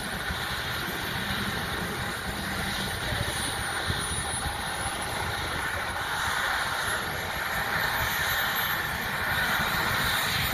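Turbine helicopter's engine and rotor running on the ground during startup: a steady rushing noise that grows slowly louder, with a faint high whine rising in pitch in the second half as the engine spools up.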